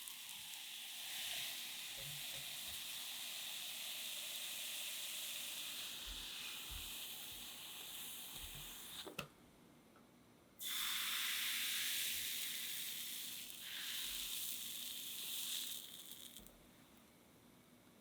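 Crepe batter sizzling in a hot pan, a steady hiss that fades slowly. It stops about nine seconds in, after a small click, and picks up again about a second and a half later before dying away near the end.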